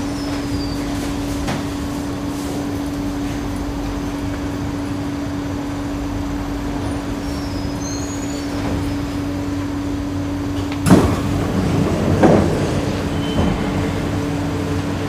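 Singapore MRT train standing at the platform with a steady hum from its onboard equipment, then the carriage doors opening with a sudden clunk and sliding noise about eleven seconds in.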